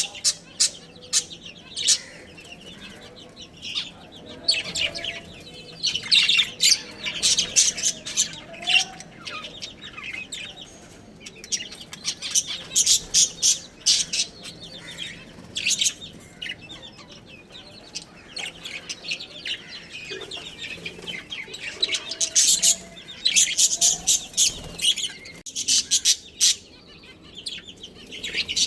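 Budgerigars chirping in rapid, high-pitched bursts that come in clusters, with short quieter lulls between them.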